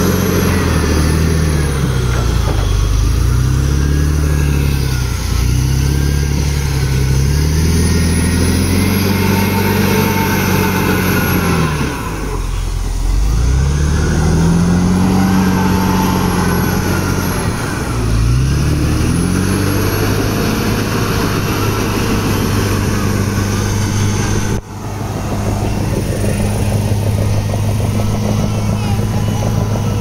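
CAT D7R crawler dozer's diesel engine working hard as its tracks churn through deep mud, the engine note rising and falling again and again. From about 20 s in it holds a steady pitch, with a brief break about 25 s in.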